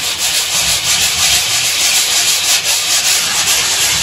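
Sanding sponge rubbed back and forth over dried spackle patches on drywall, a continuous scratchy hiss as the patches are sanded flush with the wall.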